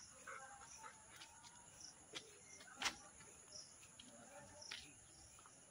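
Faint, steady chirring of crickets, with two sharp clicks about two and three seconds in.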